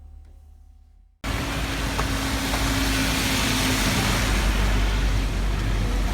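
Soft music with a gong-like ringing fades out. About a second in, a cut brings loud, steady rushing noise with a low rumble underneath.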